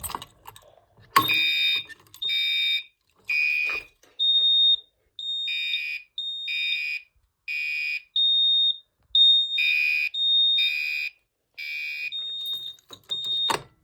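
Fire alarm horns on a 9-volt-powered demonstration board sounding after a Silent Knight pull station is activated. A buzzy horn and a clean high beeping tone pulse out of step, about half a second per pulse. The alarm starts with a click about a second in and cuts off with a click just before the end.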